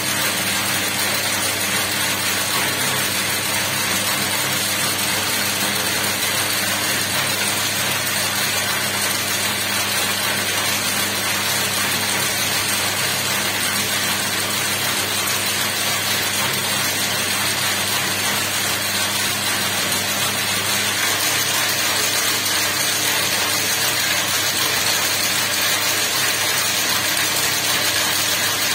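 A small braiding machine running steadily, its bobbin carriers circling the track to braid cord: a continuous dense mechanical running noise over a low hum, a little louder about two-thirds of the way through.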